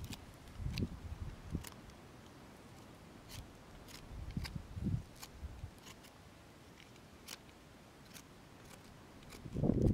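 Knife blade whittling a wooden stick: scattered small clicks and scrapes as shavings come off. Low gusts of wind on the microphone come and go, strongest near the end.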